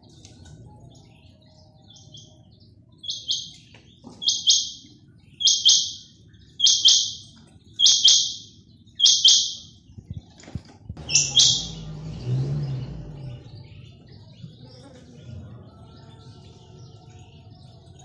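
Caged quail calling: seven loud, high-pitched calls of about half a second each, roughly one a second, stopping about two-thirds of the way through. A low rumble swells and fades just after the last call.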